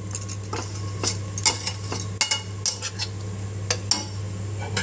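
Metal spatula stirring and mashing potato filling in a metal kadai, with irregular clinks and scrapes against the pan surface.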